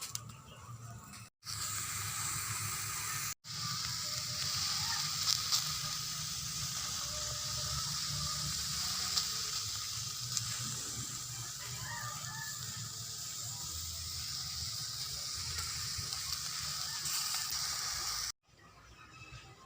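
Steady sizzling of food cooking over a fire, cut off abruptly twice near the start and again near the end.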